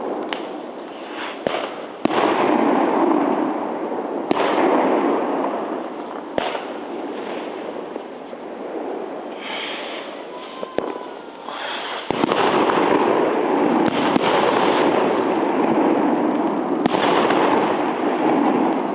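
New Year's Eve fireworks: several sharp bangs of bursting shells at irregular intervals over continuous crackling, the crackle growing louder and denser in the last third.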